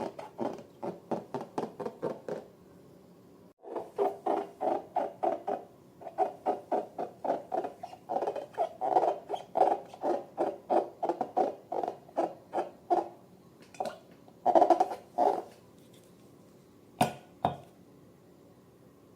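Slime being worked, making a run of short, rhythmic squelching strokes, about three a second, with a brief break early on and a pause near the end, followed by two sharp clicks.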